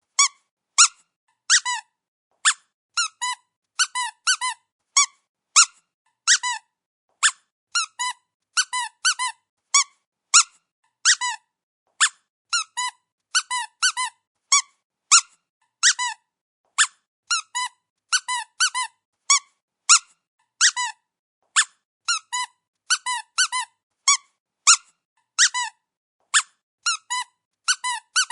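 Rubber squeaky dog toy being squeezed over and over: short high squeaks, some single and some in quick runs of two to four, about one or two bursts a second.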